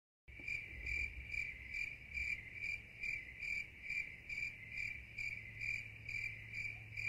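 Cricket chirping: a steady run of short, high chirps, about three a second.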